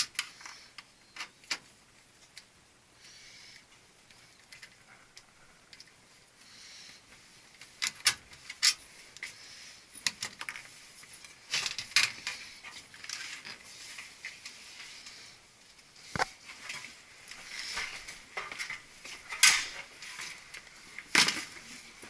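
Intermittent metallic clinks, clicks and rattles of tools and hardware being handled, with soft rustling between them.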